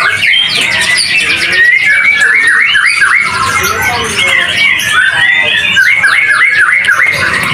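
Caged white-rumped shamas (murai batu) singing loudly in a chorus, with rapid overlapping whistled phrases and trills.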